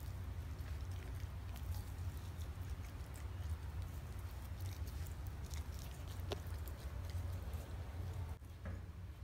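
German Shepherd licking and mouthing a raw steak: faint, scattered wet clicks and licks over a steady low hum.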